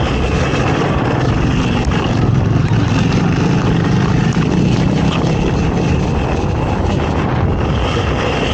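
ATV (quad) engine running hard under load in an off-road race, its pitch and loudness rising somewhat in the middle of the stretch.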